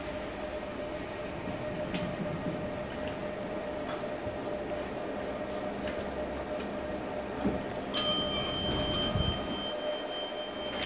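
Subway station ambience: a steady hum and low rumble. About eight seconds in, the elevator sounds a high electronic tone, which breaks off briefly and then sounds again, held longer.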